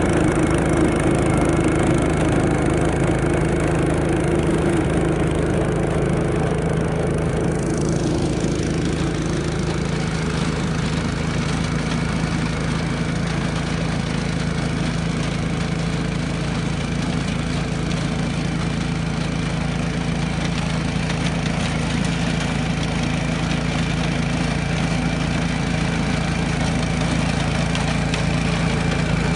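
Small petrol engine of a walk-behind vertical core aerator running steadily while the machine punches cores in the turf. A higher hiss joins the engine about eight seconds in.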